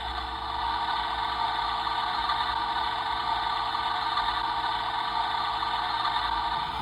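Toy Miele washing machine (Theo Klein 6933) running steadily: its small electric motor whines and the drum turns, with a light rattle.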